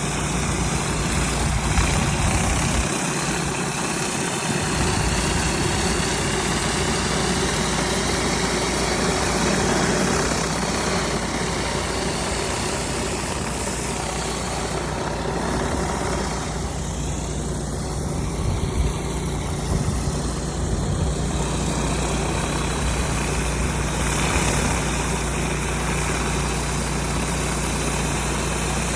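Pressure washer's engine running steadily under load, with the constant hiss of the high-pressure water spray over it.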